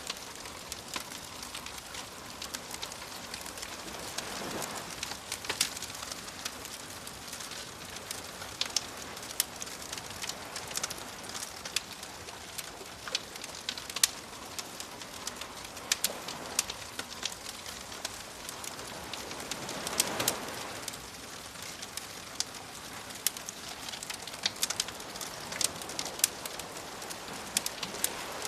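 Campfire crackling with frequent sharp pops, over the soft hiss of gentle waves, which swell as a wave washes in about four seconds in and again about twenty seconds in.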